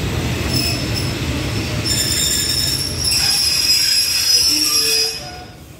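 Passenger train's wheels squealing under braking as it comes to a stop, with high steady squeal tones over a low rumble that fades away. The squeal cuts off just before the end.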